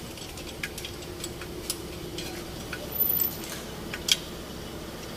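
Scattered light metallic clicks and taps, like hand tools being handled, over a faint steady hum. There is a short burst of noise about three seconds in and a sharper click just after four seconds.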